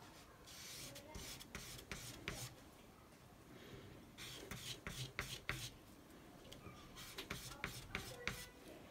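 Small double-edged carving knife blade rubbed back and forth on wet sandpaper, giving short scraping strokes in three quick runs with brief pauses between.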